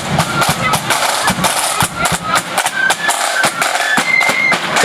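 Marching flute band playing: rapid snare drum rolls and a bass drum beat. Flutes carry the high melody, heard more clearly in the second half.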